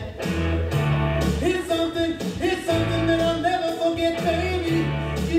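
Recorded song with a singer's voice over band backing, with changing bass notes under long held sung notes.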